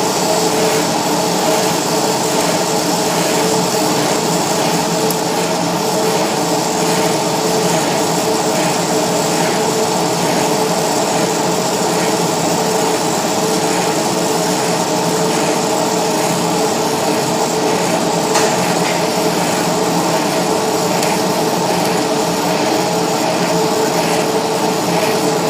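Gas welding torch flame hissing steadily, with a steady hum underneath.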